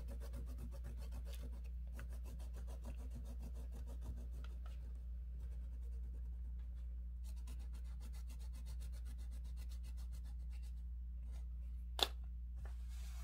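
Oil pastel scribbling on black drawing paper in quick back-and-forth strokes, with brief pauses, then a sharp click near the end, over a steady low hum.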